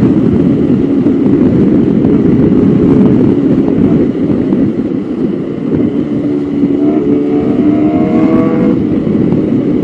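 Motorcycle engine running under way with a heavy rush of wind noise; about six seconds in the engine note climbs as the bike accelerates.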